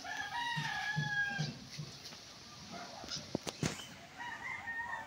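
A rooster crowing, one long drawn-out crow at the start. A few sharp clicks follow about three seconds in, and another drawn-out call begins near the end.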